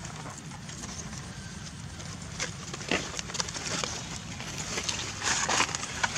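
Scattered rustles and clicks of dry leaves and grass as a macaque forages on the ground, with a denser, louder cluster about five seconds in, over a steady low outdoor rumble.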